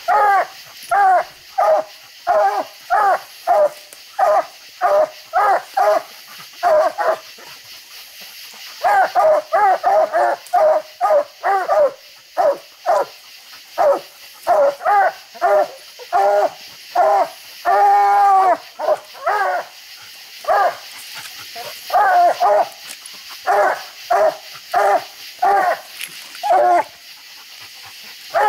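Coonhounds barking treed at the base of a tree: a steady run of short chop barks, about two a second, with a brief pause around eight seconds in and one long drawn-out bawl past the middle. This is the hounds' tree bark, the sign of a raccoon treed.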